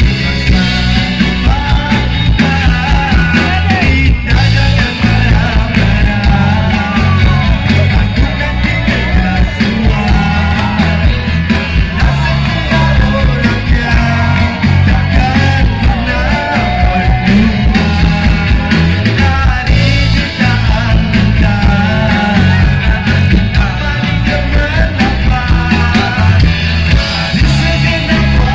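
Live rock band playing loud, with electric guitars, bass, drums and singing. The bass end is heavy and boomy, as recorded from within the concert crowd.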